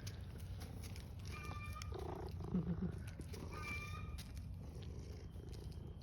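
Domestic cat purring, a low steady pulsing rumble, with a couple of faint short high tones about a second and a half in and near four seconds.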